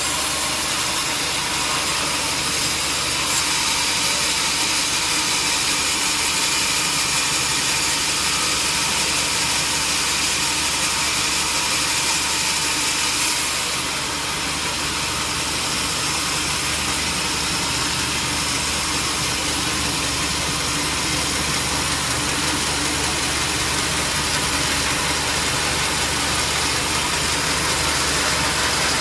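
Sawmill machinery running steadily: a motor hum under a constant hiss, with no audible change in load.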